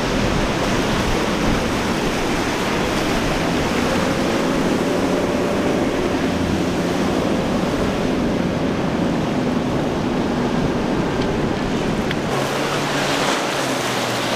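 Outboard-powered boats running at speed through breaking surf: a steady wash of waves and spray with the hum of the outboard engines underneath. About twelve seconds in the sound changes abruptly and the engine hum stands out more clearly.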